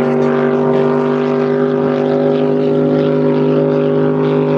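Flat-bottom V-drive hot rod boat's V8 engine running flat out at a steady speed on the water. It is a loud, even engine drone that holds one pitch throughout.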